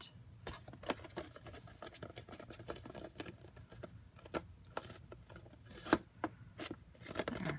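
Poster board being handled: a card roof pressed down onto a card house over double-sided adhesive, giving scattered light taps, scrapes and crackles of stiff paper, with a sharper tap about a second in and another near six seconds.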